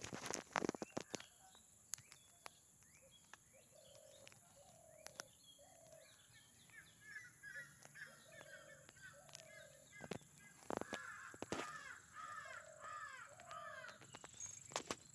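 Crows cawing, a series of short calls, with quicker, higher bird chirps joining from about halfway. Sharp clicks and knocks at the start and a few times later.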